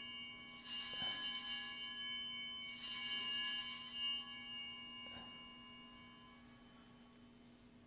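Altar bells rung at the elevation of the chalice at Mass: a ring already dying away, then two more rings about one and three seconds in, each fading out over a few seconds.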